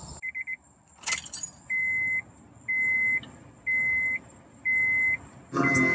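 Keys jangling and clicking in the ignition of a Honda S2000, then the car's electronic warning chime beeping steadily about once a second, each beep about half a second long. Near the end, music starts playing from the car's stereo.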